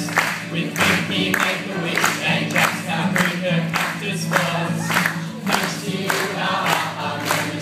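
A group of voices singing a song together, accompanied by two acoustic guitars strumming a steady rhythm.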